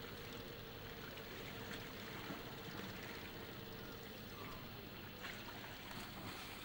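Steady hiss of water and wind on open water, with the faint hum of an idling outboard engine that fades out about two seconds in.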